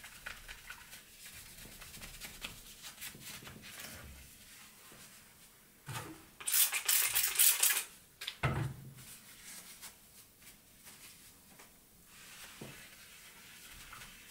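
Paper towel rubbing and wiping across a glass 3D-printer bed, scrubbing off old glue-stick residue. A louder burst of hissing comes about six to eight seconds in, with a knock just after it.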